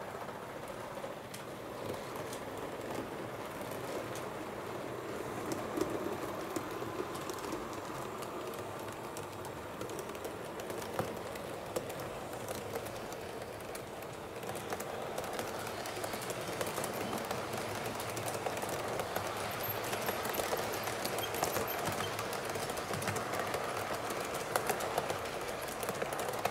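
Model train running on its track: a steady rolling hum of the motor and wheels, with quick small clicks as the wheels pass over rail joints and points. It grows a little louder about halfway through.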